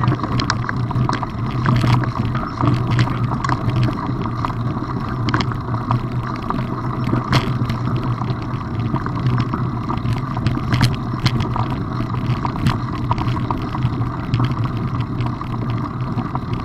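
Wheels rolling over a loose gravel dirt track, a steady low rumble with frequent clicks and rattles from stones and the moving rig, and wind buffeting the microphone.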